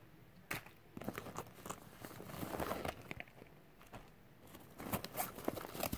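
Hands handling things in a nylon backpack pocket as a plastic lotion bottle and a notepad are lifted out: soft rustling with scattered light clicks and taps, busiest about two to three seconds in and again near the end.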